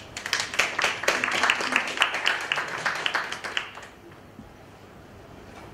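Audience applauding: dense, irregular hand claps for about three and a half seconds, then dying away.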